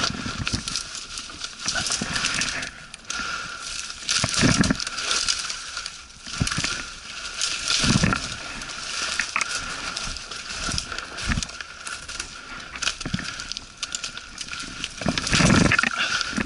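Irregular crunching footsteps with rustling and crackling, as of someone walking through undergrowth. The heaviest steps come about four and a half, eight and fifteen seconds in.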